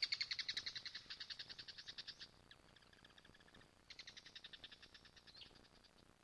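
Faint animal chirping: a rapid, even pulsed trill of about eleven chirps a second. It fades away after about two seconds and returns for a shorter burst about four seconds in.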